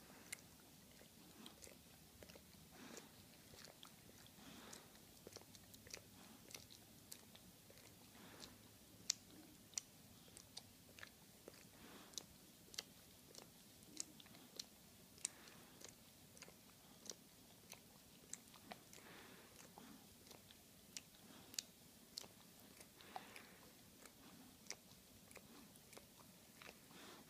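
A dog licking another dog's face and ear, with faint wet tongue smacks and clicks coming irregularly, about two a second.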